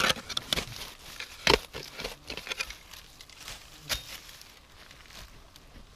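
Digging in forest soil strewn with dry leaves: irregular scrapes and crunches of a digging tool in the earth, the loudest about a second and a half in, dying away toward the end.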